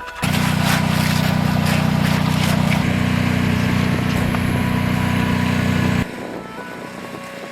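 An engine running steadily at a constant low pitch, starting abruptly just after the start and cutting off suddenly about six seconds in.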